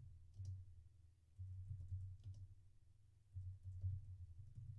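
Computer keyboard typing: faint keystrokes in three short runs with brief pauses between them.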